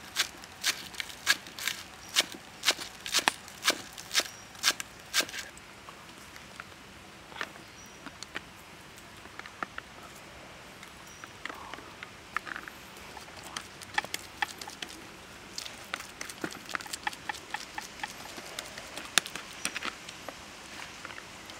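Knife chopping green onions on a thick wooden chopping block, sharp even strokes about two a second, stopping about five seconds in. After that, softer scattered taps and rustling as a plastic spoon works a minced pork mixture on a banana leaf.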